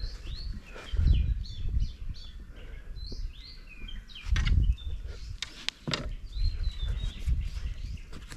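Small birds chirping over and over in short, quick notes. A few loud low rumbles break in, about a second in and again midway, with a couple of sharp clicks soon after.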